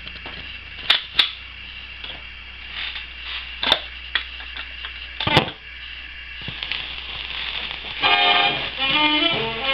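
78 rpm shellac record starting to play: steady surface hiss with a low hum and a few sharp clicks and pops, then about 8 s in the record's orchestral intro begins.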